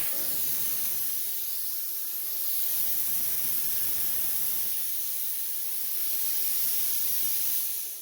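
Plasma cutter torch giving a steady, high hiss of air and arc, which stops abruptly near the end.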